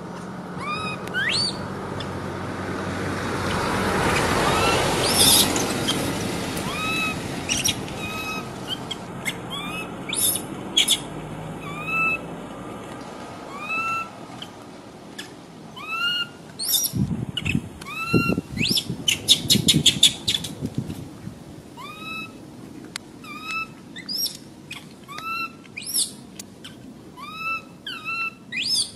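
Baby rhesus macaque giving short, high-pitched whistling calls, each rising and falling in pitch, repeated about once a second. A rustling swell comes about four to five seconds in, and some low thumps come in the second half.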